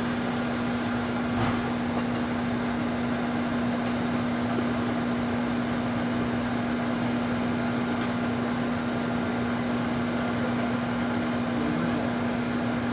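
Microwave oven running with an egg in its shell heating inside: a steady electrical hum over the fan's even whir, with a few faint ticks.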